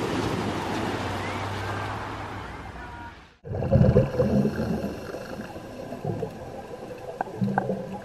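Waves breaking and washing over a pebble beach, cut off suddenly about three and a half seconds in by underwater sound: low bubbling bursts from a scuba diver's exhaled air, loudest just after the cut and again near the end.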